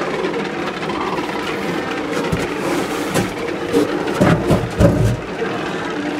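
Steady din of a large mixed colony of Double-crested and Brandt's cormorants, many birds calling at once in overlapping croaks and grunts. A few low thuds stand out between about two and five seconds in.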